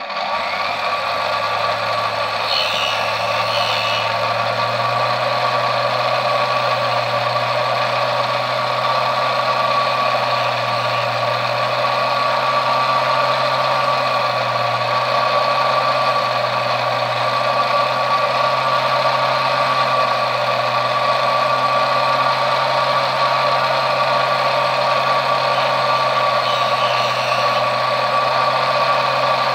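Small belt-driven precision bench lathe switched on and running steadily: an electric motor hum under a steady whine, while it turns down the flange of a model railway wheel.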